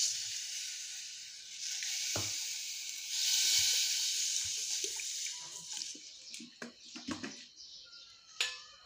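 Water poured from a cup onto granulated sugar in a steel pot, a steady splashing hiss lasting a few seconds, to start a sugar syrup. As the pour ends it gives way to a few light clicks and knocks.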